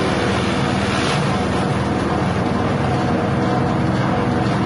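Grass chopper driven by a 6.5 hp petrol engine, running steadily at speed while grass is fed into its side inlet and cut.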